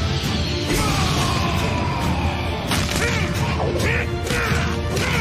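Action-cartoon soundtrack: a driving music score with crashing impact sound effects hitting several times.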